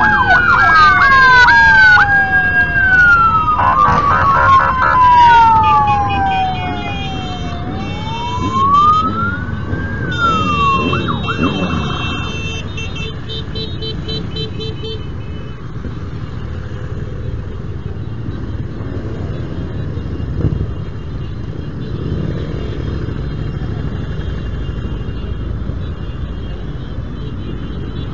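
Police motorcycle sirens wailing, several at once, rising and falling over one another until about twelve seconds in. After that, a column of motorcycles rides past with engines running and revving.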